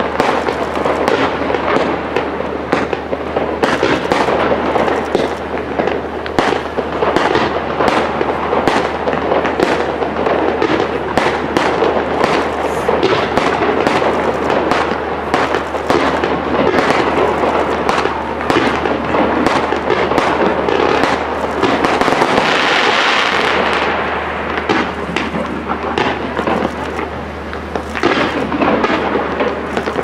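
Fireworks display: a pyrotechnic waterfall of sparks and aerial shells going off together. Dense, rapid bangs and crackles ride over a continuous hiss, and the hiss swells louder about two-thirds of the way through.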